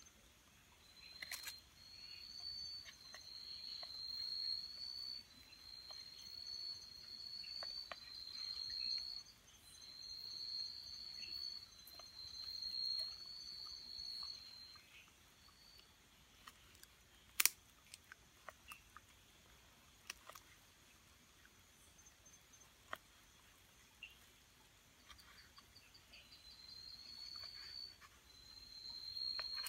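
A night insect calling in a run of high, slightly rising phrases about a second long each, about ten in a row; it stops about halfway and starts again near the end. Scattered sharp clicks of a knife slicing raw meat on a wooden cutting board, the loudest about halfway through.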